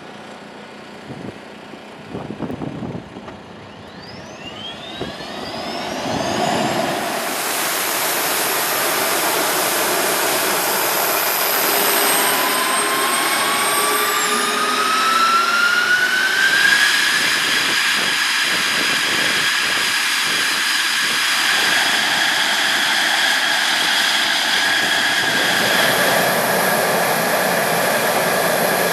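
F-16 fighter jet's turbofan engine spooling up: a whine rising in pitch builds over the first several seconds into a steady loud rush with high whining tones. The whine climbs again between about twelve and seventeen seconds in, then holds.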